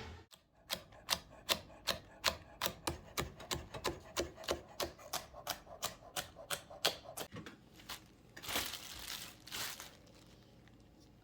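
A rapid, even series of sharp taps, about three a second, for several seconds, then two brief swishing rustles.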